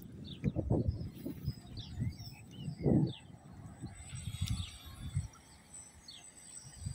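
Wind buffeting the microphone in irregular gusts, with small birds chirping in short, repeated notes.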